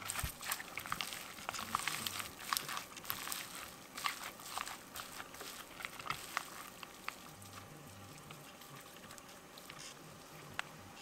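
A gloved hand squishing and kneading sticky cooked rice mixed with seasoned laver flakes in a glass bowl: rapid wet crackles and rustles, busy at first and thinning out in the second half as the rice is pressed into a ball.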